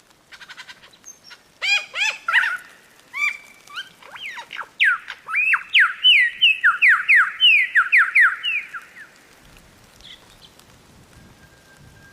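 Lyrebird singing a varied run of calls: a faint rapid rattle, then loud swooping whistled notes, then a fast series of downward-sweeping whistles, about three a second, that fades out near the end.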